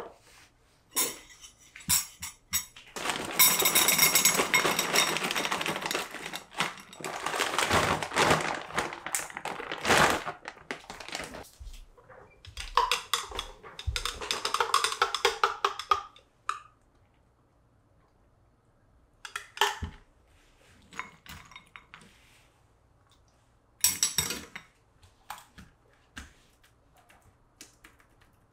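Tabletop handling sounds while making a drink. A rattling, rustling pour lasting several seconds, as frozen berries go into a glass bowl, is followed a few seconds later by a shorter rustle and scattered light clinks and taps of a stir stick and glassware.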